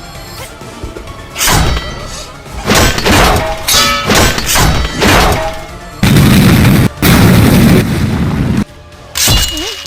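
Dubbed-in action sound effects over background music: a run of sudden booms and impacts, then a loud continuous blast of noise lasting about two and a half seconds that breaks off once briefly, and one more hit near the end.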